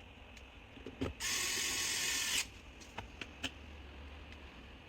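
Electric screwdriver runs once for about a second, driving a screw into a laptop's bottom cover, with small clicks of screws and plastic being handled before and after.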